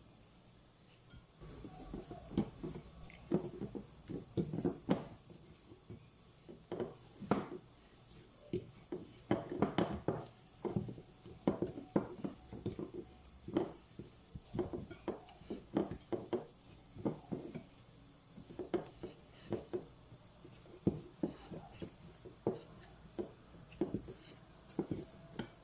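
Pizza dough being mixed and worked in a bowl, with irregular knocks and clatters against the bowl, a few a second, starting about a second in.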